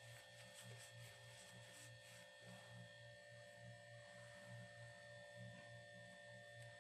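Near silence: a faint steady electrical hum with a few thin high tones and a faint low pulsing.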